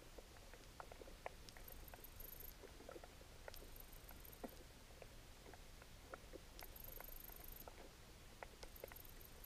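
Faint underwater ambience: scattered, irregular small clicks and ticks, with a few short spells of a faint high whine.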